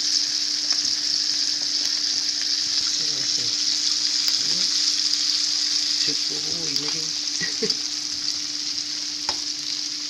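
Food frying in hot oil in a cast iron skillet, with a steady sizzle. A spoon stirs and scrapes thick macaroni and cheese in a metal pan, with small clicks, over a steady low hum.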